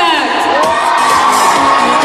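A crowd of children cheering and shouting over music, with a long high shout held from about half a second in.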